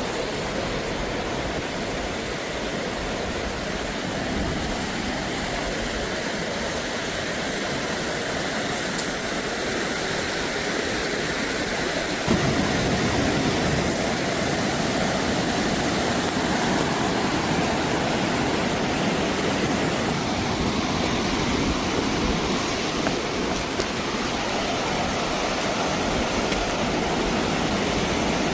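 Steady rush of fast-flowing river water, a little louder from about twelve seconds in.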